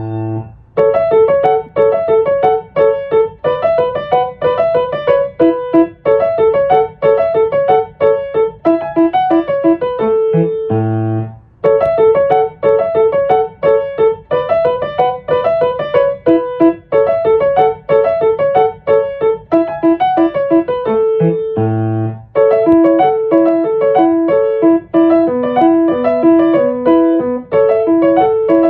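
Background piano music: a steady, repeating pattern of notes, with brief pauses about eleven and twenty-two seconds in.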